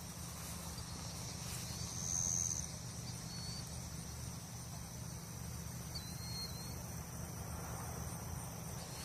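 Insects trilling steadily outdoors in a high-pitched chorus, with a few short chirps on top and a low rumble underneath.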